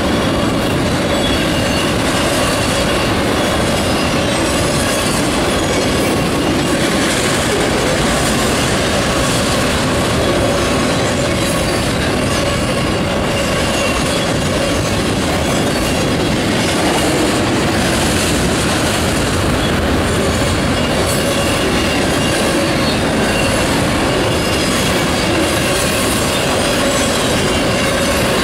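Freight train of autorack cars rolling past close by: a loud, unbroken rumble and clatter of steel wheels on rail.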